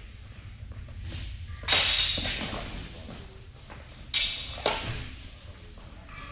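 Longsword blades clashing in a fencing exchange: two sharp strikes a little under two seconds in, then two more about four seconds in, each fading quickly in a large hall.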